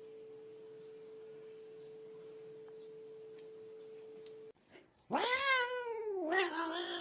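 A cat giving one long, loud yowling meow about five seconds in, rising and then falling with a waver, lasting about two seconds. Before it, a faint steady tone hums and then cuts off.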